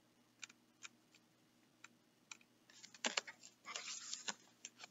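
Quiet handling of a picture book: a few faint clicks, then about three seconds in a short cluster of paper rustling and clicks as its pages are turned.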